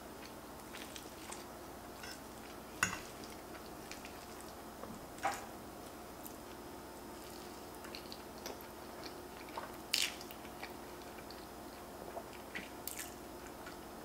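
Close mouth sounds of eating pasta carbonara: chewing and slurping noodles, with a few sharp clicks and smacks scattered through, four of them louder than the rest.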